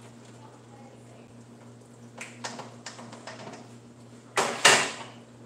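Glass pot lid knocking against a pan: a few light clicks, then two loud clanks about four and a half seconds in, over a steady low hum.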